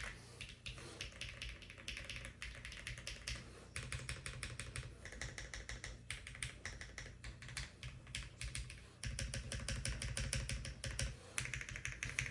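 Typing on a Lucky65 v2 mechanical keyboard with factory-lubed HMX KD200 switches and no foam inside: fast, continuous key clicks.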